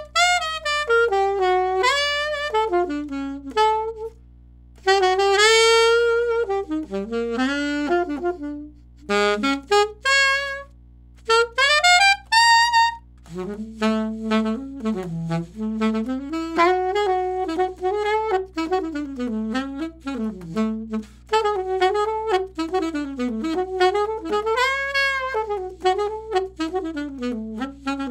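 Alto saxophone played solo through a Boston Sax Shop M-Series mouthpiece with a 7 tip opening. For the first dozen seconds it plays short phrases with brief pauses between them, then moves into a long, unbroken stretch of fast, flowing lines that rise and fall.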